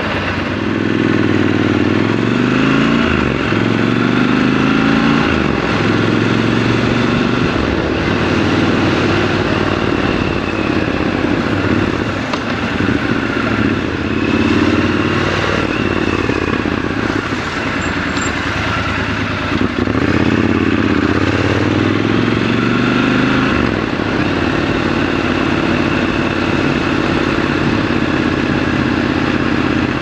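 Triumph Scrambler 1200 XC's 1200 cc parallel-twin engine pulling away and accelerating through the gears, the revs rising and dropping back at each shift several times, with steadier cruising in between.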